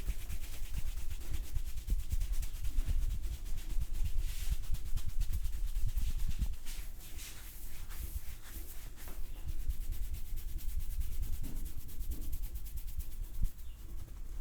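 Hands massaging a person's head, rubbing and scratching through the hair with a steady scratchy hiss, over many quick soft thuds of the strokes.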